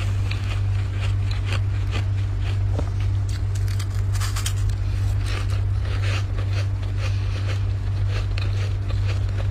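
Dry, flaky freezer frost being scraped by hand in irregular short crackly strokes, busiest about four seconds in, over a steady low hum.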